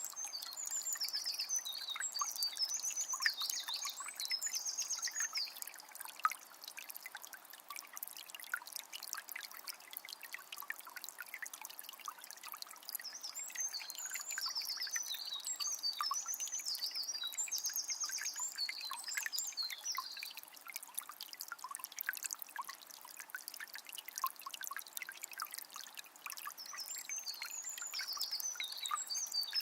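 Water of a small spring trickling and splashing steadily, full of tiny drips and clicks. A songbird sings three spells of rapid, high twittering phrases, each several seconds long: at the start, in the middle and near the end.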